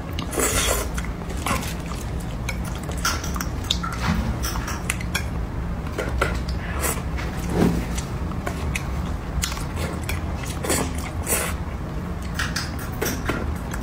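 Chopsticks clicking and scraping irregularly against a serving dish and the bones of a braised fish as the flesh is picked off.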